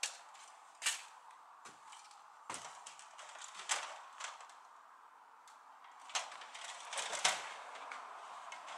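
Footsteps climbing ladders: a string of irregular knocks and clanks as boots step up an aluminium stepladder onto a wooden trailer deck and then onto the rungs of an aluminium extension ladder.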